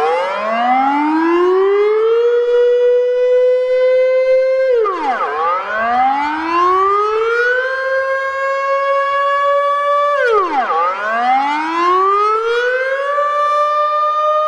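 Loud warning siren of the civil-defense kind, sounding several tones together. Its pitch drops sharply, climbs slowly back over about two seconds and then holds, a cycle that repeats about every five and a half seconds: it starts from a dip, with further dips about five and ten and a half seconds in.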